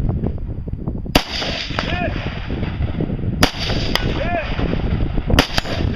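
Rifle shots fired downrange: a single shot, then two quick pairs. Between the shots come three short rising-and-falling calls.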